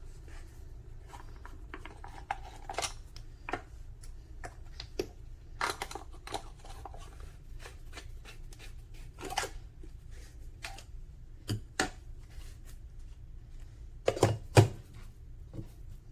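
Irregular clicks, taps and rubbing as a portable hand-pump espresso maker's plastic and metal parts are handled, with two louder knocks near the end.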